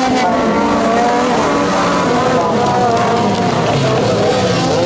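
A pack of autocross cars racing on a dirt track, several engines revving at once with pitches that rise and fall over one another.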